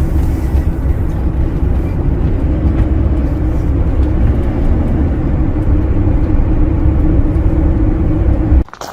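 Vehicle on the move: a steady, loud low rumble of road and engine noise that cuts off suddenly near the end.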